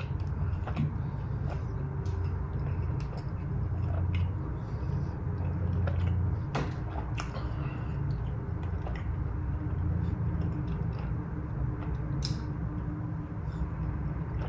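A person chewing a bite of cheeseburger with a thick, dense bun: soft wet mouth clicks over a steady low hum.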